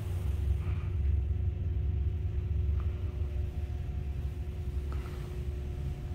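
A steady low rumble with a faint, even hum underneath: air-conditioning and ventilation noise in a small room.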